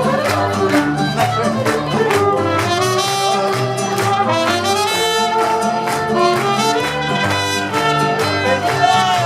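Mariachi band playing, trumpets carrying the melody over a steady strummed rhythm and a stepping bass line.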